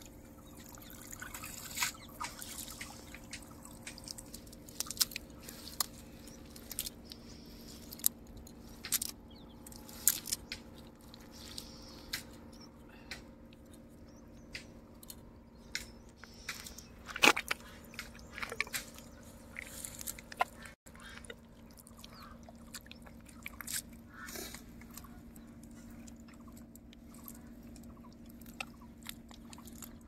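Live prawns flicking in a wet fishing net as the catch is handled: irregular small clicks and crackles with a little dripping water, the sharpest click about two-thirds of the way through.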